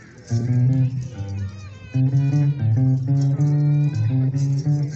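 Guitar and bass music: plucked notes begin about a third of a second in, break off briefly, then go on.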